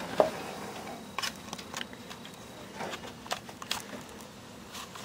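Opossum chewing dry cat food, heard as irregular soft crunches and clicks, about one or two a second.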